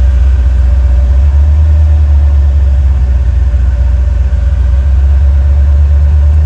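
Off-road Jeep engine running at low revs, a steady low rumble heard from inside the vehicle as it waits on the trail.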